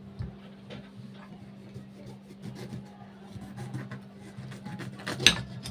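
Kitchen knife cutting a fresh lemon in half: faint small taps and scraping, then one sharp knock of the blade on the board about five seconds in, over a steady low hum.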